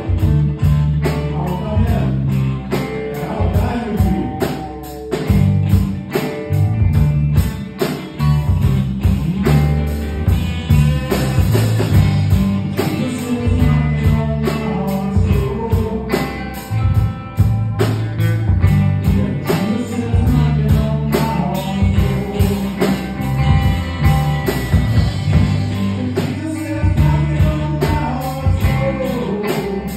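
Live rock band playing: electric guitars, bass guitar and a drum kit with steady cymbal strokes about twice a second.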